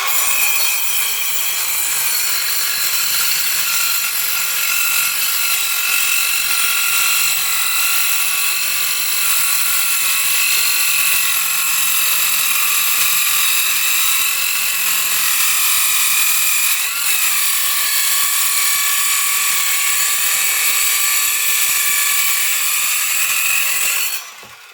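Galax Pro mini circular saw cutting through chipboard: the motor and blade run with a steady high whine and a dense cutting hiss for about 24 seconds, then stop near the end.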